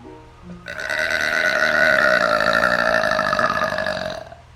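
A woman's long, loud burp, starting about half a second in and held at a steady pitch for about three and a half seconds.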